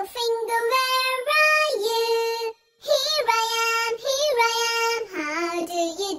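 A high child's voice sings a simple tune in held notes, with a short break about two and a half seconds in.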